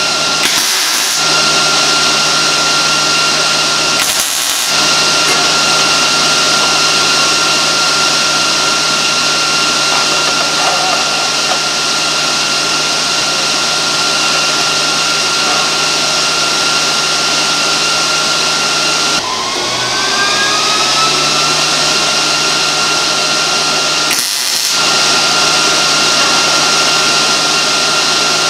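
Steady machine noise: an even rushing hiss over a constant hum and a thin whine, broken by three short gaps. About two-thirds of the way through the hum drops lower and the whine slides up in pitch.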